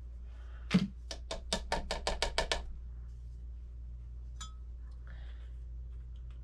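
A metal measuring tablespoon rapped quickly against the rim of a blender jar, about ten sharp taps in two seconds with the first the loudest, knocking sticky peanut butter off the spoon. Later a single click and a short soft scrape come as the peanut butter is scraped off the tablespoon with a second spoon.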